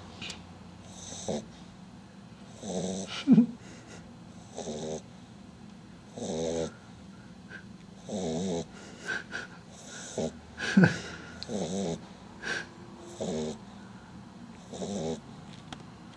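French bulldog puppy snoring in its sleep: a buzzing, rattling snore with each breath, about every second and a half. Two sharper, louder snorts break in among them.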